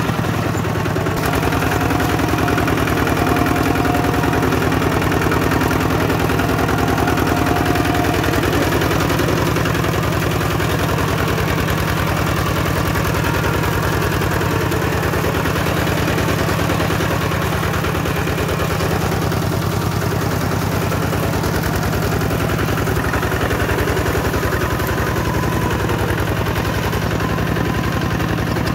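Kubota tractor engine running steadily, a rapid, even chug of firing pulses.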